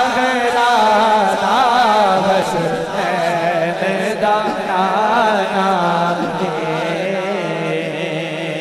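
Male devotional singer's amplified voice singing an ornamented, wavering line of a Punjabi/Urdu manqabat, then holding one long steady note that slowly fades near the end.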